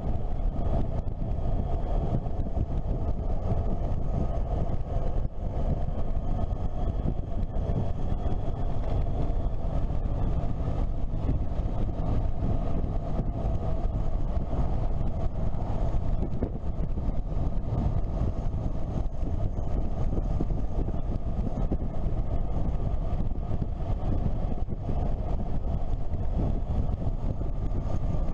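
Motorcycle riding at a steady cruising pace: a steady engine drone mixed with heavy wind rush on the bike-mounted microphone, with no marked revving or gear changes.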